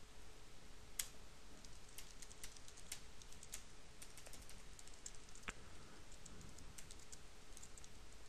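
Computer keyboard being typed on: faint, irregular runs of short key clicks.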